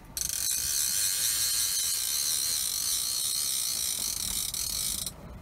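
Portable propane radiant heater hissing steadily, a loud high hiss that starts abruptly just after the start and cuts off near the end.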